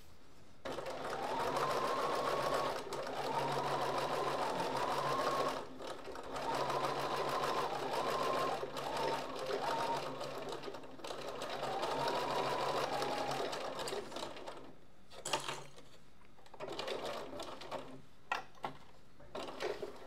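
Bernina sewing machine stitching in several runs with short pauses between, its motor whine rising in pitch as each run speeds up. The machine stops about fourteen seconds in, followed by a few sharp clicks and rustling of the fabric.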